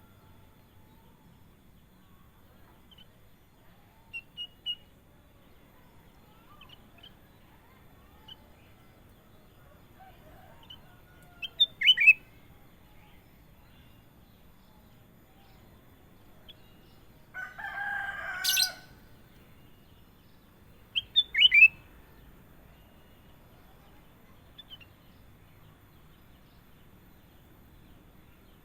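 Kutilang emas, a bulbul, calling in scattered phrases: a few short high chirps, then loud quick whistled notes sweeping down in pitch about twelve seconds in and again near twenty-one seconds. About eighteen seconds in comes a louder, harsher call lasting about a second that ends in a sharp crack.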